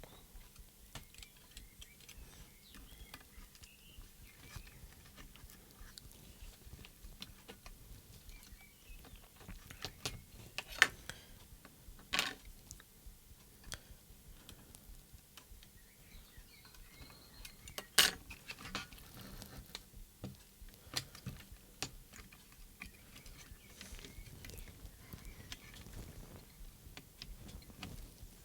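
Quiet handling of small plastic transmitter parts and wiring connectors, with scattered faint clicks and ticks. Three sharper clicks stand out, two close together near the middle and one a few seconds later.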